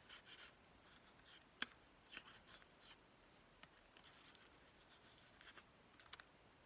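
Faint rustling and handling of paper and card pieces, with one sharp tap about one and a half seconds in.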